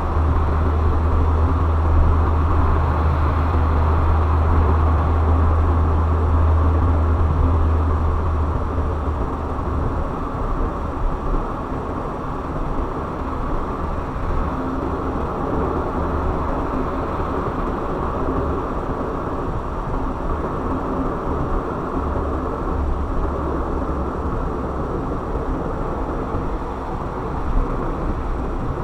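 A car on the move: steady road and engine noise with a heavy low rumble that eases off about nine seconds in.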